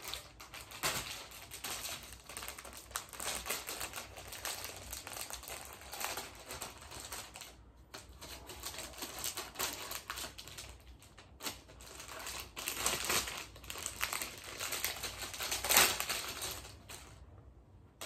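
Plastic packaging crinkling and rustling as it is torn and pulled open by hand, with many irregular crackles and one louder crackle near the end.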